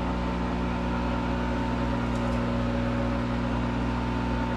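Monarch 10EE lathe running steadily under power during a warm-up to circulate its oil, with the carriage on power feed: a quiet, even mechanical hum made of several steady tones.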